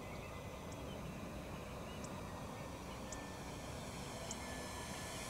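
Faint, steady drone of a distant four-motor electric RC C-130 model's propellers, with short high chirps about once a second from a bird in the woods.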